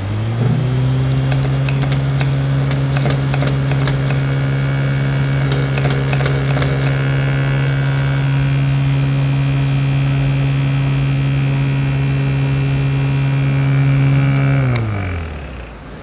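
Small electric motor of a handheld spray-water mini fan spinning up, running with a steady hum, then winding down about a second before the end. Scattered light clicks in the first half.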